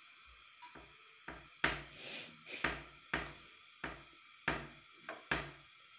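A toddler's hand slapping a wooden kitchen cabinet door, giving a run of irregular knocks about twice a second that begins about a second in.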